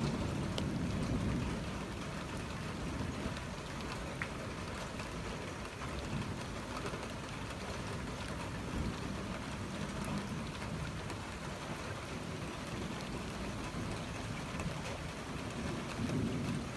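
Steady rain falling. The tail of a thunder rumble fades out over the first couple of seconds, and a fainter low rumble of thunder swells again near the end.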